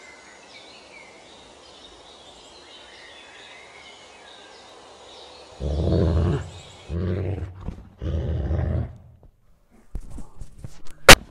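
Faint night-time outdoor hiss with light chirping, then three deep animal growls about a second apart starting around the middle. Near the end come a few faint clicks and one sharp, loud knock.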